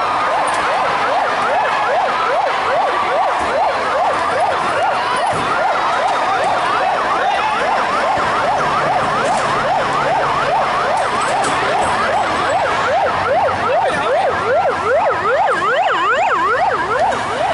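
Fire engine's siren sounding a fast yelp, its pitch sweeping up and down several times a second.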